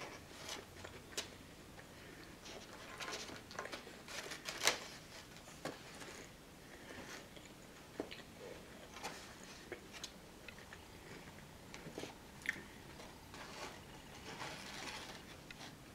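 Close-miked eating sounds: chewing and wet mouth noises as liver and onions are eaten, with scattered clicks and scrapes of a metal fork and knife against a styrofoam takeout container. The sharpest click comes about four and a half seconds in.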